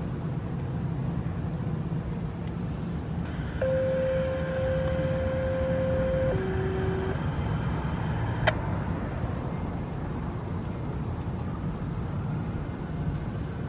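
Two-tone paging signal over a radio scanner: a steady higher tone for about two and a half seconds, then a lower tone for under a second, over steady rumble and hiss. This is the tone page sent out to activate the outdoor warning sirens. A single sharp click comes about a second after the tones end.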